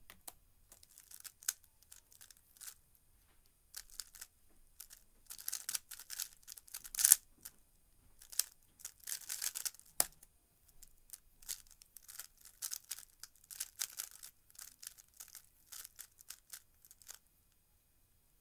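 3x3 speedcube turned fast by hand: rapid clicking and clacking of plastic layers, with a loud clack about seven seconds in. A single sharp tap about ten seconds in stops the timer, then more turning follows as the cube is scrambled.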